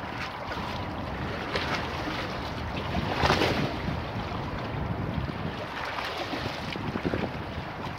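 Choppy river waves lapping and splashing against stone embankment steps, with wind buffeting the microphone. Several splashes surge over the steady wash; the loudest comes about three seconds in.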